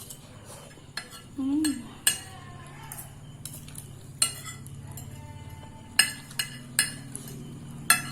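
Cutlery clinking against a plate while eating noodles: about seven sharp, irregularly spaced clinks, with a short hum about one and a half seconds in.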